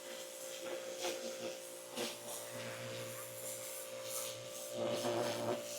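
Pressure washer running steadily: a constant motor hum and whine under the hiss of the water spray, with brief surges of spray noise.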